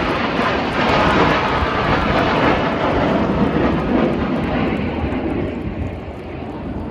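Engine noise of a display aircraft flying past, loud at first and slowly fading near the end as it moves away.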